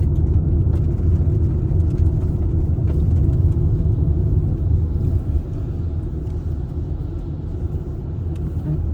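Car on the road, a steady low rumble of tyres and engine while driving, easing slightly about halfway through.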